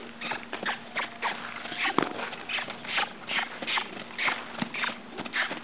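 Hoofbeats of a young Quarter Horse moving loose on sandy footing: a steady run of short, crisp footfalls, about three a second, over a faint steady hum.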